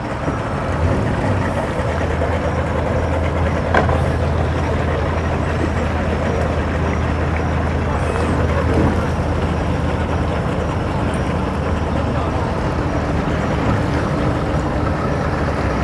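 Outboard motor of a small center-console boat idling, a steady low hum. A single short knock about four seconds in.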